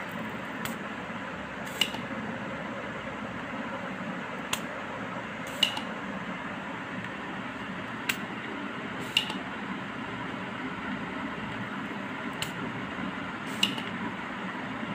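A screwdriver tip making sharp little metallic clicks against a circuit board, most of them in pairs about a second apart, with a pair every few seconds. A steady background hiss runs underneath.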